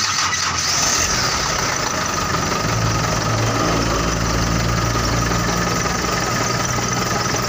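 Freshly rebuilt diesel engine of a Mitsubishi Colt Diesel PS125 truck, its injection pump just set, catching with a few rough knocks and then settling into a steady idle about a second in.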